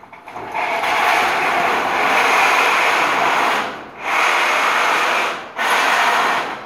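Corrugated steel roof panel sliding along the steel rafters of a metal carport frame, metal scraping on metal: one long scrape, then two shorter ones with brief breaks between.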